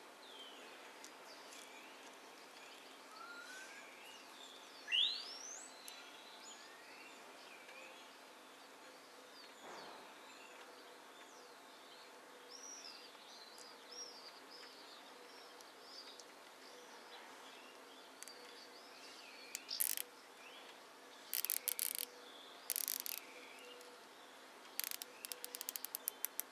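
Small birds chirping throughout, with one loud rising whistle about five seconds in. In the second half, nylon cable ties being pulled tight around the roots: several bursts of quick ratcheting clicks, the last a rapid run near the end.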